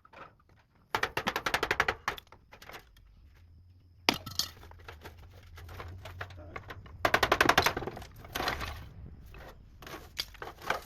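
Masonry from an old chimney being knocked down, the stones and rubble clattering down in three rapid runs of impacts about a second in, about four seconds in and about seven seconds in.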